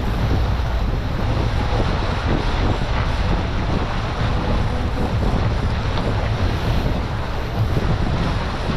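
Wind buffeting the microphone over the steady low rumble of a fishing boat under way at slow speed, with water rushing along the hull.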